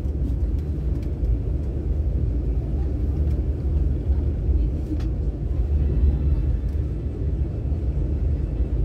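Inside the carriage of a CRH high-speed train running on the line: a steady low rumble from the running gear and track, with a faint click about five seconds in.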